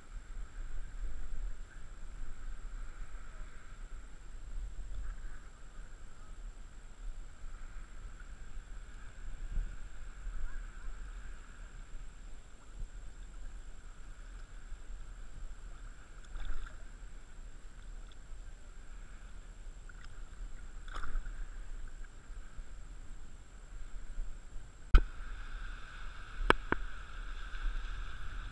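Water lapping and sloshing close around a wading angler, over a low wind rumble on the microphone. Near the end come a few sharp clicks.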